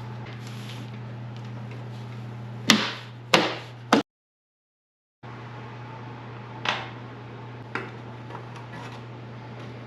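Three loud, sharp knocks of hard parts or a tool being struck, a little over half a second apart, over a steady low hum. The sound then cuts out completely for about a second, and a few lighter clicks and taps follow.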